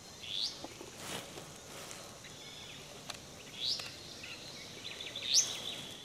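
A flycatcher calling in the trees: three short rising whistles, the last near the end being the loudest.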